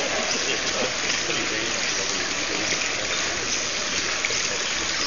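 Steady rush of running water, with faint voices murmuring behind it.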